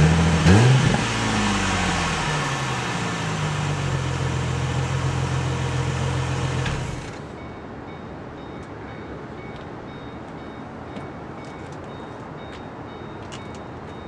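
Ford Mustang V6 on its stock exhaust, heard at the tailpipe: a quick blip of the throttle about half a second in that falls back to a steady idle. The engine then cuts off about seven seconds in, leaving a faint background with a few light clicks.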